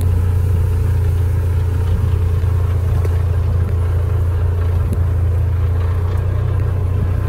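A vehicle engine running at a steady, loud, low hum, with no change in speed.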